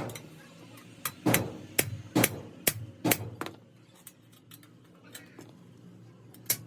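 Hammer blows on metal: a quick, uneven run of about eight sharp ringing strikes, then a pause with a few light taps and one more strike near the end.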